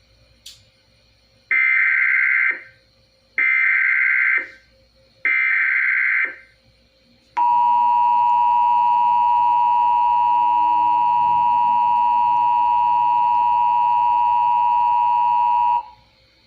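Emergency Alert System signal: three one-second bursts of the warbling SAME digital header, then the steady two-tone EAS attention signal for about eight seconds, which cuts off sharply. Together they mark the start of an alert broadcast.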